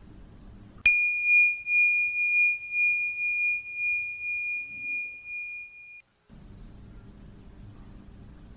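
A meditation bell struck once about a second in, ringing a single high clear tone that pulses as it fades. It is cut off abruptly about six seconds in, and faint steady hiss follows.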